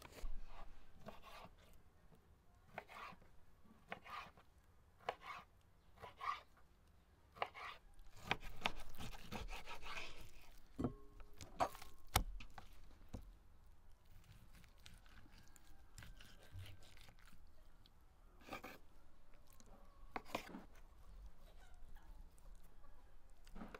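Kitchen knife cutting raw beef liver over a plate and a wooden cutting board: short, separate cuts and knocks about a second apart, then a longer stretch of slicing about eight seconds in, and sparser knocks after.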